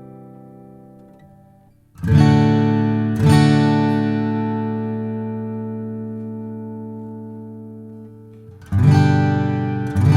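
Taylor 526e First Edition acoustic guitar, strummed chords left to ring out. A chord fades away at the start, two chords are struck a second apart about two seconds in and ring for several seconds, and two more are struck near the end.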